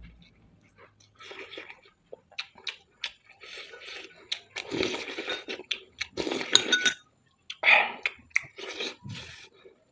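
Close-up eating sounds: a spoon clinking and scraping on a plate and chewing of fried rice, in short irregular bursts with sharp clicks, busiest in the middle of the stretch.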